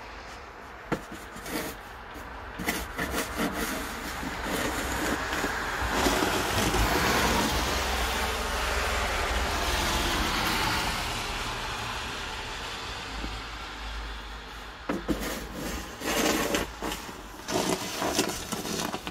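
Snow shovel scraping snow off a paved driveway in short strokes, a few near the start and a quick run of them in the last few seconds. In between, a steady hiss of tyres on the wet road swells and fades over several seconds as a vehicle passes.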